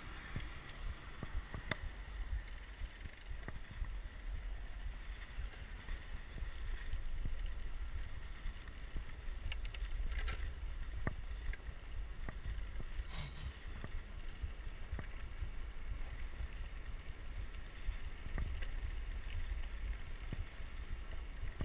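Wind buffeting a handlebar-mounted action camera's microphone while riding a road bike: a steady low rumble, with a few faint clicks and knocks from the bike over the road.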